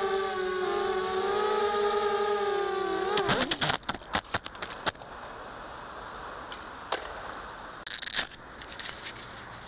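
A mini racing quadcopter's brushless motors and propellers whine steadily, pitch wavering, then about three seconds in the quad crashes. The whine drops off into a rapid clatter of propellers and frame striking the ground for a couple of seconds. Afterwards there is a low steady hiss, with two more sharp knocks near the end.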